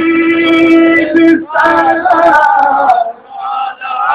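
Men singing a devotional salam to the Prophet Muhammad during the standing qiyam: a long held note, then flowing melodic phrases with short breaks between them.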